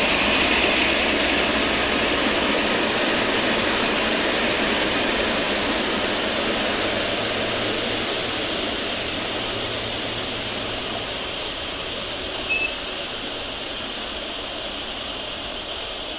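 Boeing 777 freighter's twin jet engines running as it taxis away: a steady rushing noise that slowly fades. A brief high chirp sounds about twelve seconds in.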